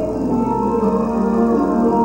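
Gospel church music, instrumental, with held chords and no clear voice.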